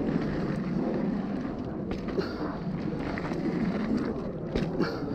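Mountain bike rolling fast over a packed-dirt trail: a steady rush of tyre noise and wind on the microphone, broken by a few sharp knocks and rattles from the bike over bumps, the clearest about two seconds in and near the end.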